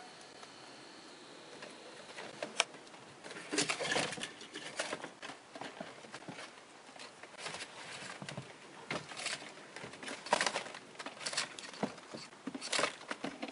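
Irregular rustling, scraping and clicking as a long plastic cable tie, with a wire taped to it, is fed down behind plastic dash trim panels, with one sharp click a couple of seconds in.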